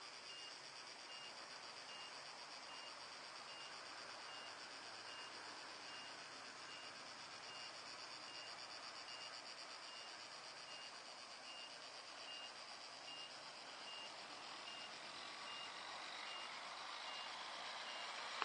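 A steady, high-pitched chorus of cicadas runs under a faint electronic beep, which repeats evenly about three times every two seconds like a vehicle's reversing alarm. There is a single sharp click at the very end.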